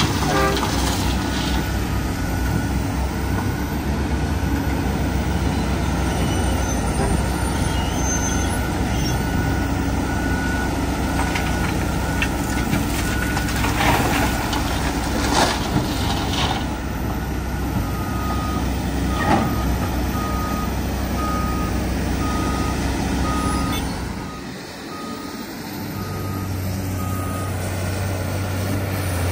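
Heavy diesel earthmoving machinery running steadily, a CAT hydraulic excavator loading a dump truck, with a reversing alarm beeping at even intervals. A few sharp knocks and clatters come as the bucket dumps rock into the truck bed.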